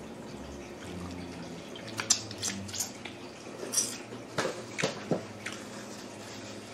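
Mealtime sounds at a dining table: about eight sharp clicks and snaps between two and five and a half seconds in, from eating and handling food on plates, over a low steady hum.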